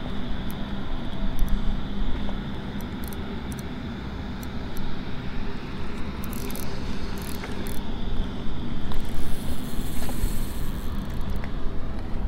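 Steady low hum of a distant engine under outdoor background noise, with faint ticks and a brief high hiss about nine seconds in.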